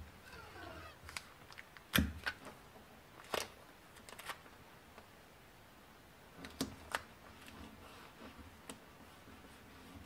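Clear adhesive tape pulled from a desk tape dispenser and torn off, with hands pressing it onto veneer and cardboard on a wooden tabletop: a scattering of soft rustles, clicks and taps, the loudest a knock about two seconds in.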